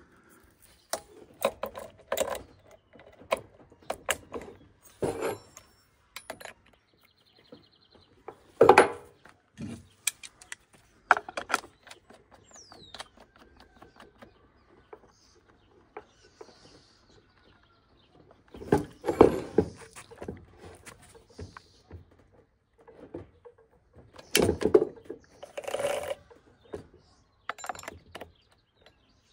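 Intermittent clicks, knocks and clatter from a Stihl chainsaw and its bar and chain being handled, with a few louder bouts of clattering; near the end, a combination wrench (scrench) is fitted onto the bar nuts.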